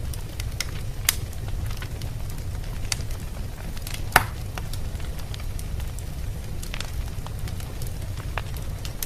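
Wood fire burning in a fireplace: scattered crackles and pops over a steady low rumble, with one sharp loud pop about four seconds in.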